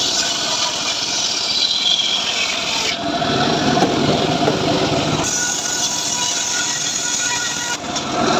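Homemade engine-driven sawmill (gergaji srekel) running steadily while sawing sengon logs. The sound changes abruptly about three seconds in, about five seconds in and again near the end.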